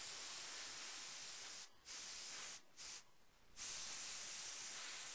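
Copic ABS-1 airbrush hissing as it sprays Copic marker ink. The spray stops and starts three times between about one and a half and three and a half seconds in, then runs on steadily.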